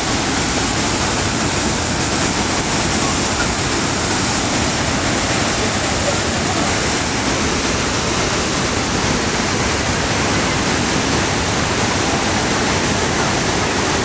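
Niagara Falls: a steady, unbroken rush of falling water, loud and even throughout.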